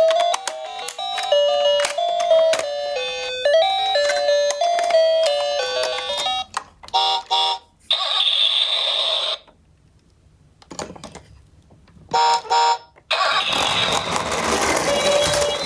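A toy ambulance's electronic sound unit plays a chiming melody of clear stepped notes. Short electronic beeps follow, with stretches of hissy whirring noise in between, the loudest near the end.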